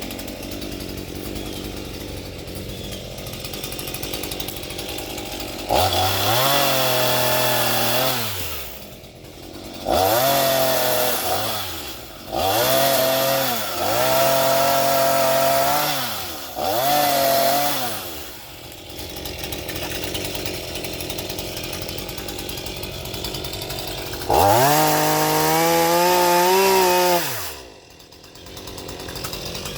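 Chainsaw idling, then throttled up in about five bursts, its pitch rising and falling with each. It goes back to idle in between and drops off suddenly near the end. This is the chainsaw being worked slowly through a tree limb.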